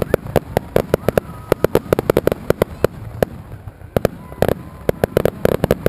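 Aerial fireworks bursting: a rapid, irregular series of sharp cracks and bangs, several a second, with a brief lull a little past the middle.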